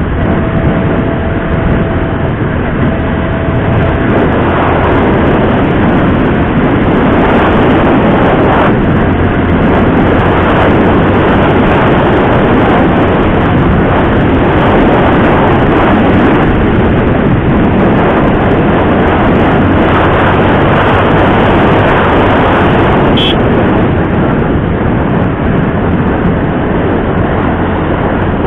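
TVS Apache RTR 160 4V motorcycle's single-cylinder engine running loud and steady, under a dense rushing noise, with a faint held tone in the first three seconds.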